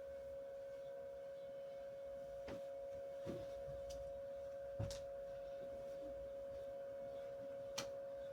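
A steady, unbroken pure tone held at one pitch, with four faint short knocks scattered through it.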